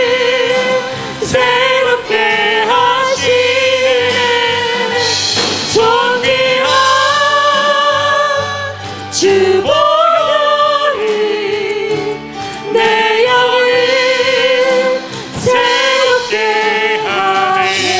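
A small worship praise team singing a gospel song into microphones over acoustic guitar, with long held notes.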